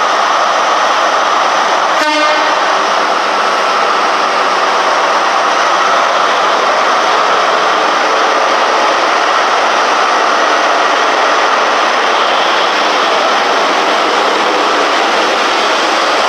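Class 43 HST power car's diesel engine running loud and steady as the train moves past close by along the platform, with a short sharp sound about two seconds in.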